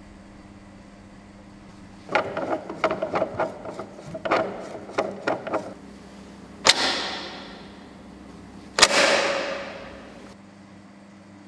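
Expansion cloud chamber being worked by hand: a run of rattling clicks and knocks, then two sharp bangs about two seconds apart, each followed by a hiss of rushing air that fades over a second or so. The bang and hiss are the sudden expansion of the chamber that makes its vapour supersaturated.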